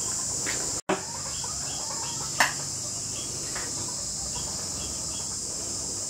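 Steady high-pitched chorus of insects, with a few faint short chirps and one brief sharp call about two and a half seconds in.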